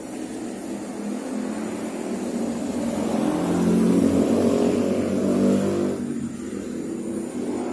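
A motor vehicle passing on a nearby road. Its engine grows louder as it approaches, peaks about halfway through, and fades quickly once it has gone by.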